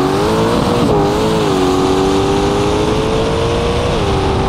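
Twin-turbo LS V8 of a 1968 Camaro at full throttle on a drag-strip pass, its pitch climbing steadily. The pitch drops about a second in and again near the end as the automatic transmission shifts up.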